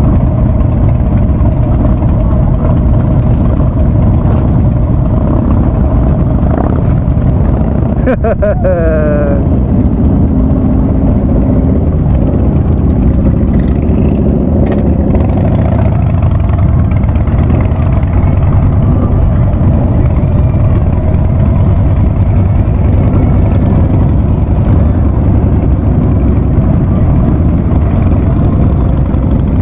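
Harley-Davidson Ultra Classic's V-twin running loud through a Vance & Hines Big Radius exhaust while riding, a steady low rumble. About eight seconds in, a short falling tone sounds over it.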